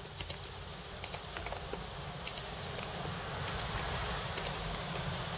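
Light plastic clicks, scattered and mostly in close pairs, of computer input buttons being pressed to step back through on-screen test menus, over a steady low hum.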